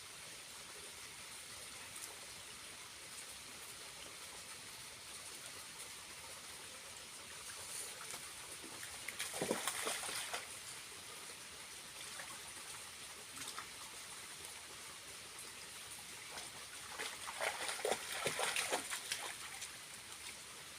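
Small waterfall trickling steadily, with two louder bouts of splashing, one around the middle and one near the end.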